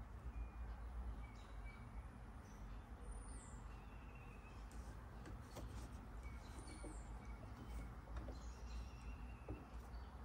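Quiet room tone with a low steady hum and faint handling of fabric pieces at a sewing machine, with a few faint high chirps.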